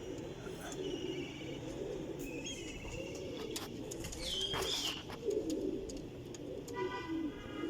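Several pigeons cooing continuously, with calls overlapping, and a few short high-pitched chirps and trills mixed in.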